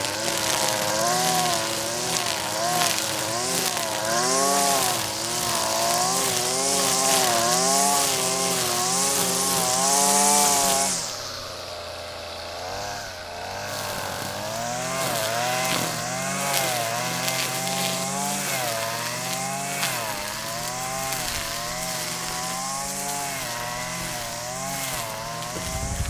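Small two-stroke string trimmer (weed eater) engine running at high revs, its pitch rising and falling as it works through grass. About eleven seconds in it gets quieter and the hiss from the cutting fades, but the engine keeps running.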